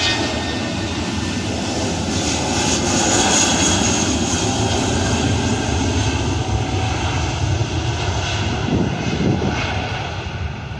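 Jet airliner's engines passing by, a rumble with a high whine that swells to its loudest about three seconds in and then slowly fades.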